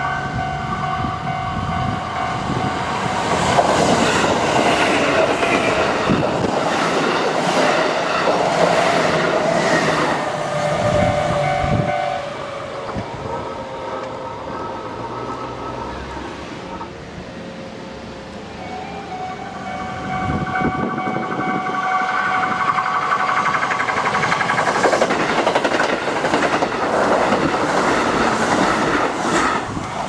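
Japanese level-crossing warning bell ringing with a train passing, its wheels clattering over the rail joints. The bell stops about twelve seconds in. It starts again about seven seconds later as a Kintetsu limited express approaches, louder near the end.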